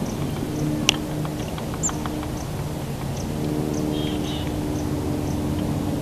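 Acorn woodpecker tapping on a dead tree snag: a sharp knock about a second in, then a few lighter taps, over a steady low hum and a few brief high bird chirps.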